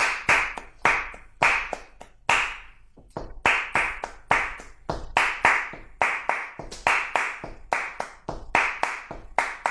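Rhythmic flamenco hand-clapping (palmas) mixed with sharp taps, each strike ringing briefly in a reverberant room, with a short pause about three seconds in.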